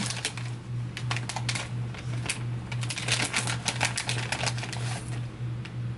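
Plastic dog-treat bag crinkling and crackling as it is handled and opened, a busy run of irregular crisp clicks, over a steady low hum.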